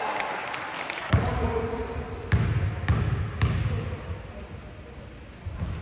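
Basketball bouncing on the court: a few separate thuds from about a second in, with faint voices behind.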